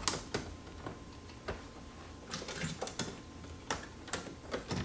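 Scattered light clicks and knocks of a double-DIN car radio with metal side brackets being handled and test-fitted against a BMW E36's plastic dash opening.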